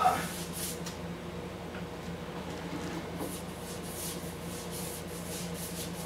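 Soft, scattered swishes of a synthetic paintbrush stroking water-based polycrylic finish onto a stained wooden tabletop, over a steady low hum.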